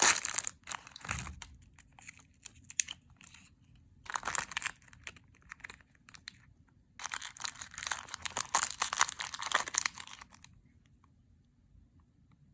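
Plastic toy wrapping crinkling and tearing as it is opened by hand, in irregular bursts, the longest from about 7 to 10 seconds in.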